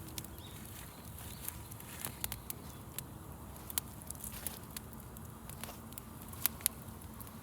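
Wood campfire crackling: irregular sharp pops and snaps over a low steady hiss of burning, with two louder pops near the end.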